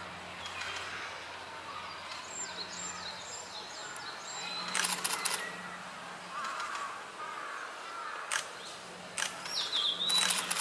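Blue-and-white flycatcher singing a run of short, thin, high notes with falling tails about two seconds in and a falling whistled phrase near the end. Clusters of camera shutter clicks about five seconds in and near the end are the loudest sounds.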